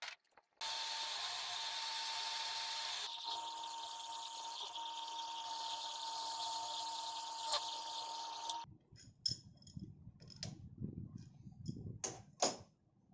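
An electric power tool runs steadily for about eight seconds as it cuts into the vise's steel plate, with a steady tone over a hiss that changes slightly about three seconds in. It stops abruptly, and a few light clicks and knocks of metal parts being handled follow.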